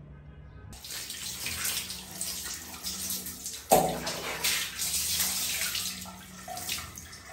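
Water poured from a plastic scoop over a cat during a bath, splashing and running off its soaked fur, with a sharp knock and a short ring about three and a half seconds in.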